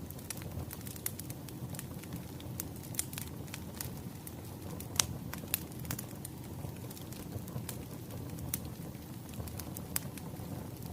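Wood fire crackling, with a steady low rumble of burning and irregular sharp pops and snaps, the loudest about halfway through.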